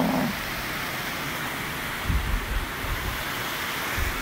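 Steady rush of a nearby waterfall, with a few low thumps about two seconds in and again near the end.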